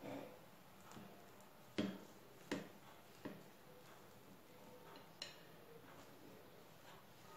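A few light clicks and taps of a metal knife and cake server against a glass cake stand while a cream cake is sliced, over a quiet room.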